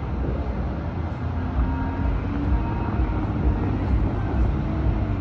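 Steady outdoor rumble of wind on the microphone and distant city traffic, with faint tones coming and going.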